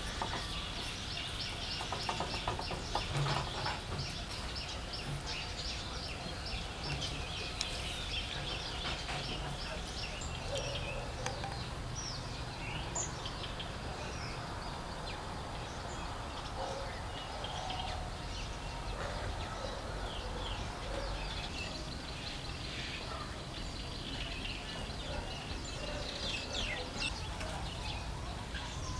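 Outdoor ambience of birds chirping and calling, with a fast trill in the first few seconds, over steady background noise.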